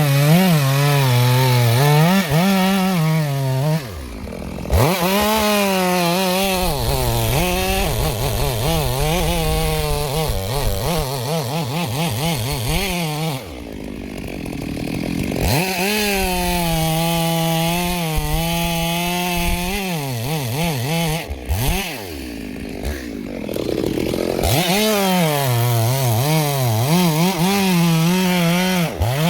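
Chainsaw running at high revs while cutting through a big tree, its pitch wavering under load. Three times it drops back briefly toward idle, then revs up again.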